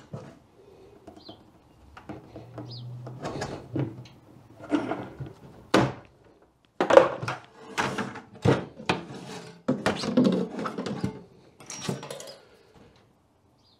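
A plastic bucket and hand tools being handled on a workbench: a run of knocks, thumps and clatters, with one sharp knock about six seconds in.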